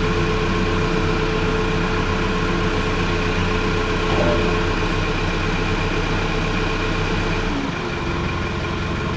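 A JCB 3CX backhoe's diesel engine idling steadily, its deep low note shifting about three-quarters of the way through.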